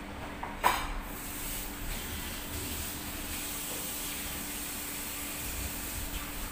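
A metal ladle clanks once against a large steel pot as tomato sauce is scooped and ladled over trays of stuffed aubergines, with a steady hiss underneath.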